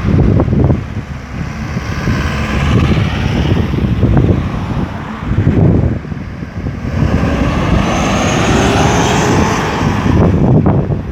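Road traffic moving through a busy roundabout: car and truck engines rumbling, and vehicles passing close by with tyre noise. Two louder passes swell and fade, one a few seconds in and a longer one in the second half, the latter with a high whine.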